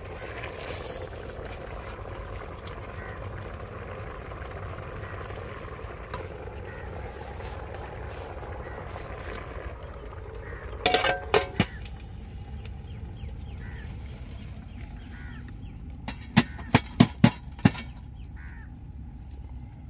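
Banana leaf rustling as it is pressed over the biryani in a metal pot, then a steel lid clanks and rings as it is set on the pot about halfway through. Near the end, about six sharp metallic knocks as burning embers are piled onto the lid to seal the pot for dum cooking.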